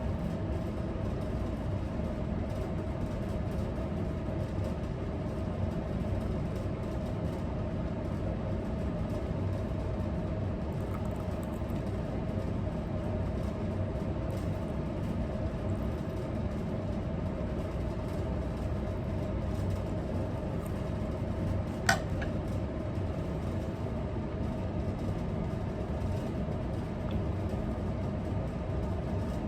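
Steady low mechanical hum, like an engine idling or a running appliance, with a constant faint tone in it. A single short, sharp sound cuts in about 22 seconds in.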